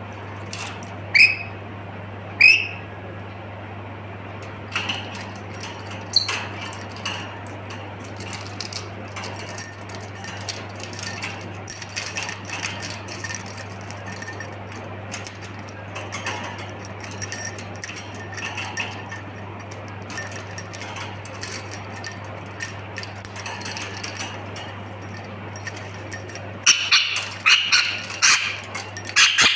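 A pet dog giving two short high whines, then moving about with small clicks, rustles and jingles that grow busier near the end, over the steady low hum of an air conditioner.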